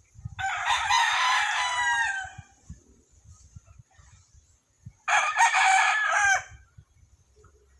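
White bantam (dwarf) rooster crowing twice. The first crow lasts about two seconds and falls away at its end; the second, shorter one comes a few seconds later.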